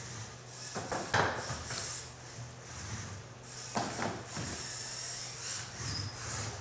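LEGO robot driving across a competition mat: its electric motors and gears whir with a steady low hum and a hiss that comes and goes. Two clattering knocks come about a second in and again about four seconds in.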